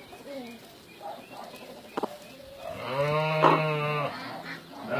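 A farm animal bleating once, a long pitched call of about a second starting about three seconds in. A short sharp click comes about two seconds in.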